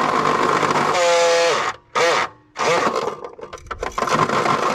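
A power drill drilling bolt holes through a car's sheet-steel firewall. The motor's whine drops in pitch about a second in as the bit bites. It stops briefly twice in the middle, then restarts and runs in short stop-start bursts.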